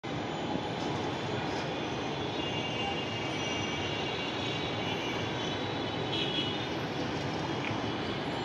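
Steady din of distant city traffic, with faint vehicle horns sounding now and then.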